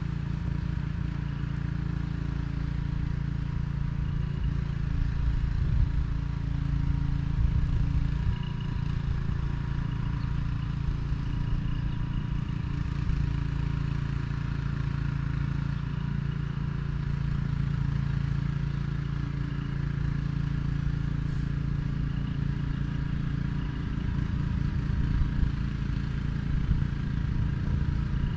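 Boat motor running steadily at an even speed, a constant engine hum.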